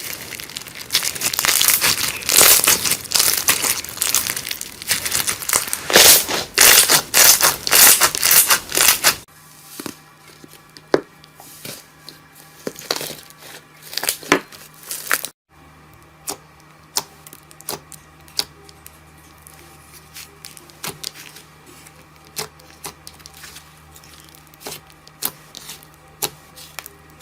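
Hands working slime: dense, loud crunchy crackling for the first nine seconds or so, then quieter separate pops and clicks of the slime being pressed and poked over a faint steady hum.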